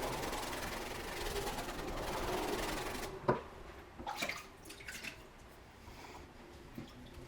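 Steady abrasive rubbing of the knife's steel for about three seconds. It then stops, followed by one sharp click and a few light knocks.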